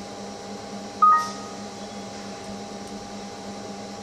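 Steady low electrical hum of a running computer, with one short, bright electronic beep about a second in that fades quickly.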